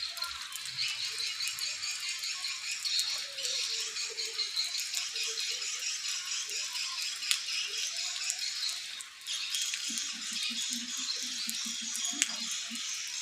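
Edible-nest swiftlets chattering in a dense, continuous high twitter, a sign that birds are responding to the lure call and beginning to use the building.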